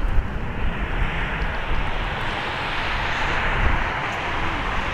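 Boeing 767-300ER's twin GE CF6-80C2 turbofan engines at takeoff thrust as the airliner lifts off and climbs out: a steady, loud rush of jet noise that builds slightly toward the end.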